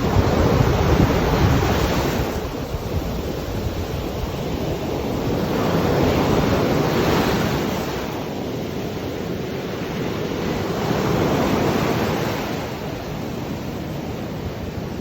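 Sea waves breaking and washing onto a beach, the surf swelling and fading three times, with wind rumbling on the microphone.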